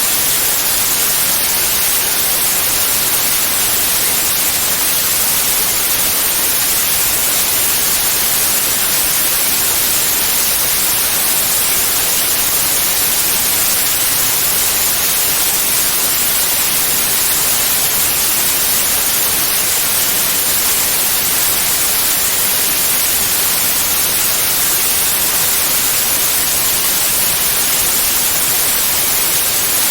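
Steady synthetic white noise: an even, unbroken hiss that is brightest in the high frequencies, played as a tinnitus masker.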